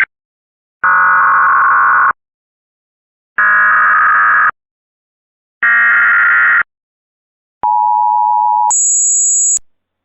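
Emergency Alert System SAME header: three short bursts of buzzing digital data tones, each about a second long with a gap of about a second between them. Then the EAS two-tone attention signal sounds for about a second and jumps abruptly to a much higher, shrill pitch for about another second before cutting off.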